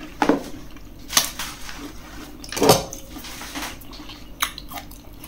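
A few separate clinks and knocks of a plate and eating utensils being handled, roughly one a second, the loudest a little past the middle.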